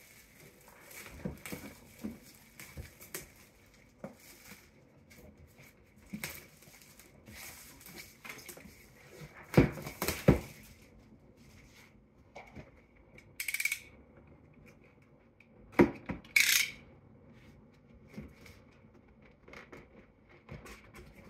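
Hands opening a taped cardboard toy box: scattered taps, knocks and rustles of the packaging, loudest in a cluster of knocks about ten seconds in. Two short rasping tears, about thirteen and sixteen seconds in, fit tape or stickers being pulled off the box.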